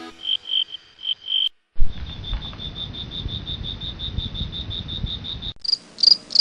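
Cricket-like insect chirping in regular pulses, in three short stretches that differ in pitch and pace. The middle stretch is a fast, even train of about seven pulses a second over a low rumble, and the last is higher and louder.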